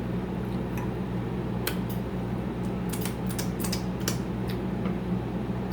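Close-up eating sounds: a cluster of small crisp clicks and crunches of chewing and mouth noise, from about two seconds in until nearly four and a half seconds, over a steady low hum.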